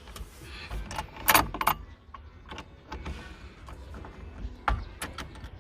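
Light metallic clinks and rattles from a socket wrench and the loosened steering-wheel nut being handled, loudest in a short cluster about a second and a half in, with another sharp clink near the end.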